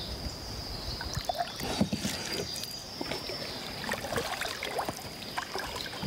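Kayak paddle strokes: irregular splashes and drips as blades dip into and lift out of calm water. A steady high whine runs underneath.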